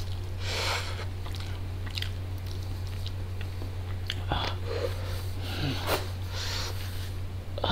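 Close-miked eating: a sip from a small plastic bowl about half a second in, then chewing and mouth noises with a few small clicks as biryani rice is eaten by hand, over a steady low hum.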